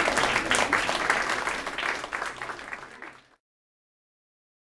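Audience applause, a dense patter of many hands clapping that fades out and cuts off about three seconds in.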